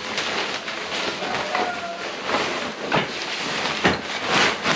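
Fabric rain cover of a motorcycle camp seat bag rustling and swishing as it is pulled over the bag and smoothed down by hand, with two sharp clicks about three and four seconds in.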